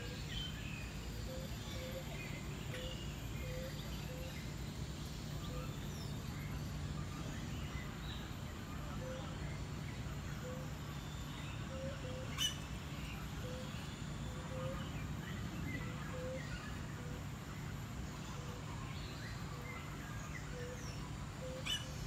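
Mixed aviary birds chirping and calling: scattered short high chirps and a string of short low notes repeating every half second or so, over a steady low hum. A sharp click about halfway through and another near the end.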